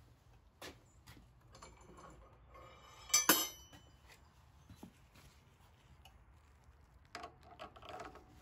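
A metal tool clinks sharply against metal about three seconds in, ringing briefly. A cluster of small metallic clicks and handling noises follows near the end as a wrench is fitted onto the lathe's steel stopper mandrel.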